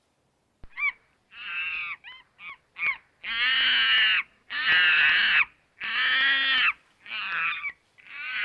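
A bird calling repeatedly: a few short pitched calls, then three long calls of about a second each, then more short calls near the end.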